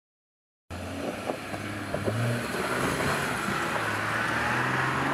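Jeep Gladiator Mojave pickup's engine running under way, with wind and tyre noise; it starts abruptly under a second in and the engine note shifts up and down in pitch.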